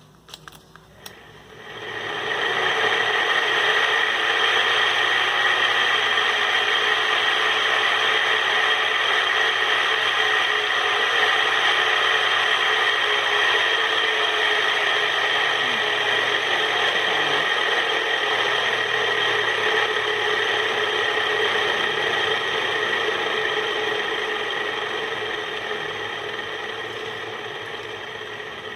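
Tron Greco ceiling fan running with its bearings making a loud, steady grinding scrape that starts about two seconds in, after a few light clicks, and eases slightly near the end. The bearings are bad: water leaking in from the roof slab rusted them.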